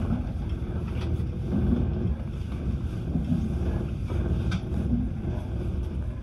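Passenger train running at speed, heard from inside the carriage: a steady low rumble of wheels on rails, with two faint short ticks about a second in and midway through.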